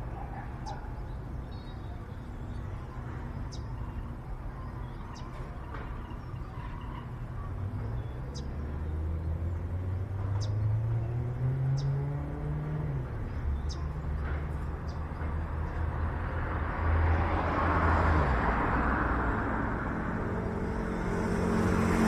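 Low rumble of a motor vehicle's engine, its pitch climbing briefly around the middle and the sound swelling louder near the end as it passes, with faint sharp high ticks every second or so.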